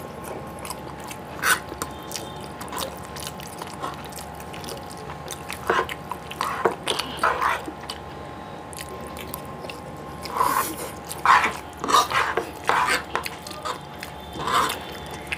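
Eating Maggi instant noodles at close range: short wet slurps and chewing, with clicks of a fork on a metal tray. The bursts come in clusters, thickest about two-thirds of the way in, over a faint steady hum.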